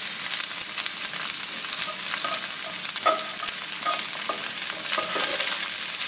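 Sliced onions sizzling steadily in hot oil in a frying pan, being lightly browned, with the scrape and tap of a plastic slotted spatula stirring them several times.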